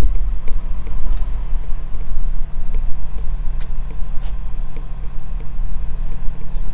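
A vehicle engine idling: a steady low hum.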